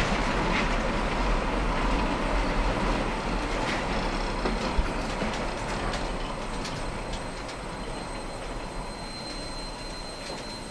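Empty flat wagons of a KiwiRail freight train rolling past on the rails, with wheel clicks and a thin high wheel squeal. The sound fades steadily as the last wagon goes by.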